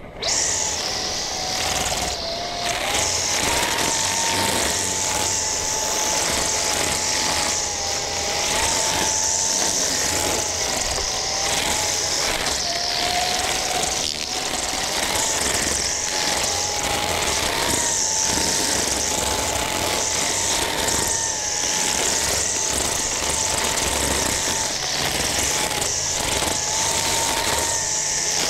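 String trimmer running steadily at high speed with a wavering whine, its spinning line hissing as it cuts grass around tree trunks.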